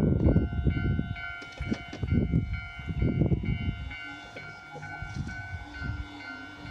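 Level crossing warning bell ringing steadily as a Fukushima Kotsu Iizaka Line electric train runs over the crossing, its wheels clattering heavily on the rails. The clatter thins out after about three and a half seconds as the train passes, while the bell keeps ringing.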